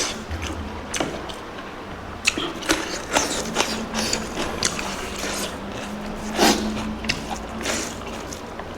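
Close-miked eating of pork curry: irregular crunching and wet chewing clicks, a few louder crunches around the middle.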